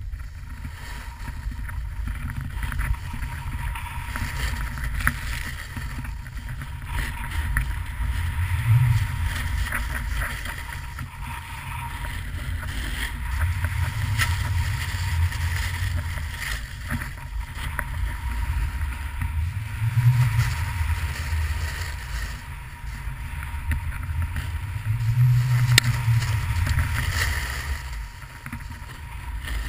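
Wind rushing over the camera microphone and a snowboard sliding and scraping over snow as it rides downhill. The low rumble swells every few seconds, with small scraping clicks throughout.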